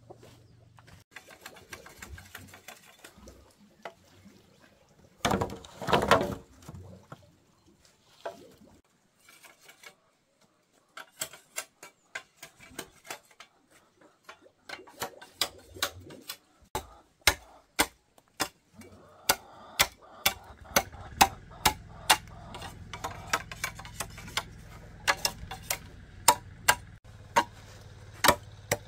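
Hand tool striking wood in repeated sharp knocks, about two a second through the second half, with a louder noisy burst about six seconds in.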